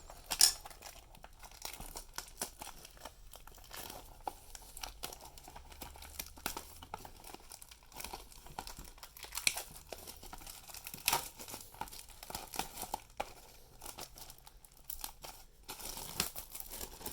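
Plastic shrink-wrap on a trading-card booster box crinkling and tearing as it is slit and peeled with a letter opener, in an irregular run of crackles and clicks, the sharpest about half a second in.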